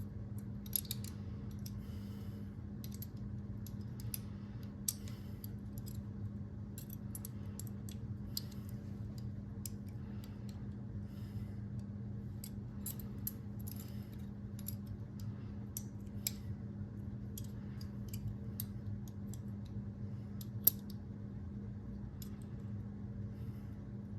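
Small metal latch parts clicking and clinking as they are handled and worked by hand, with one sharper click late on, over a steady low hum.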